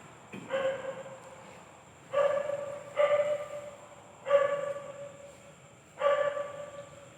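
A dog barking five times at uneven intervals, each bark the same pitch and trailing off over about half a second.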